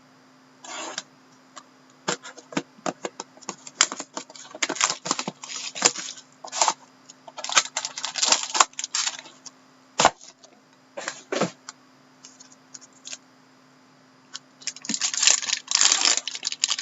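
Irregular clicks, scrapes and rustles of a sealed trading-card box and its packaging being opened and the cards handled by hand. The sounds come in clusters, busiest in the middle and again near the end.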